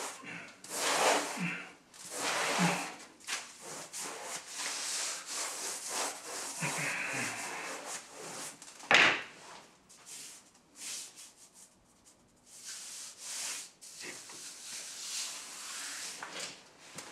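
Hands rubbing and pressing pasted woodchip wallpaper against the wall and into a corner: a run of irregular rustling strokes of paper. A single brief, sharp noise about nine seconds in is the loudest moment.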